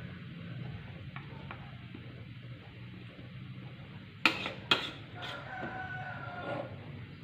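Metal utensil clanking twice against a cooking pot while chicken simmers for opor ayam, over a steady low hum. Right after the clanks comes a drawn-out pitched call in the background, lasting about a second and a half.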